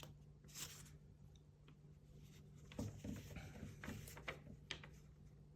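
Faint paper rustling and soft clicks from an instruction manual being handled, a few brief ones, over a low steady hum.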